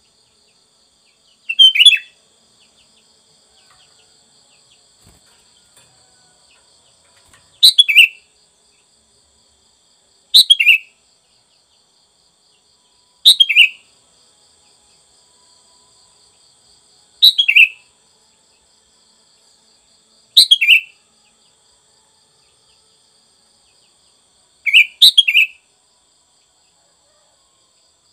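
Sooty-headed bulbul singing short, bubbly phrases, about seven of them a few seconds apart. Each phrase is about half a second long and falls in pitch.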